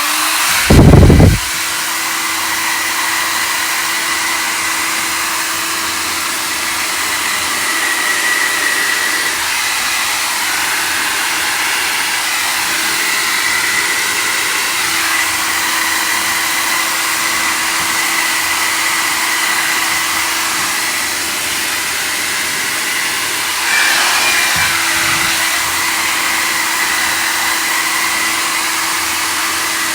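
Xiaomi Mi Ionic Hair Dryer H300 running steadily: a rush of air with a steady hum and a fainter high whine. About a second in, the airflow hits the microphone in a loud, low buffet. The sound swells briefly about three-quarters of the way through.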